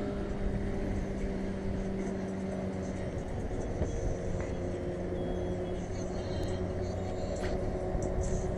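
An engine running steadily with a humming drone that steps slightly lower in pitch about three seconds in.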